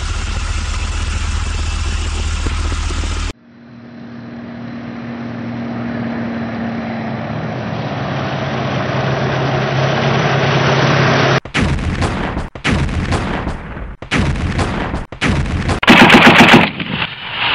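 Soundtrack effects: a steady engine rumble, then a second engine sound that grows louder for about eight seconds. From about eleven seconds in come several bursts of machine-gun fire, the loudest about sixteen seconds in.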